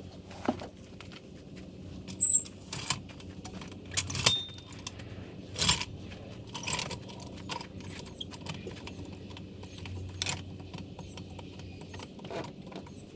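Metal tools clinking and clattering as they are handled, a string of sharp separate clinks over a steady low hum.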